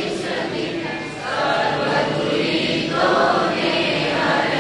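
Congregation singing a Gujarati Jain devotional hymn together, many voices at once, a refrain of homage to the five supreme beings.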